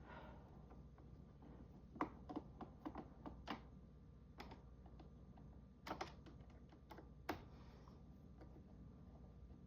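Scattered light clicks and taps of a screwdriver and the Roomba's plastic shell as its screws are being taken out, a few close together about two seconds in and single ones later.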